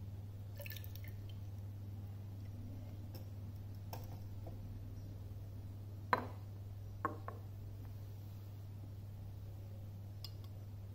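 Laboratory glassware being handled: a glass beaker set down on a wooden bench with a sharp knock about six seconds in, then two lighter glass knocks, with a few faint clinks earlier, over a steady low hum.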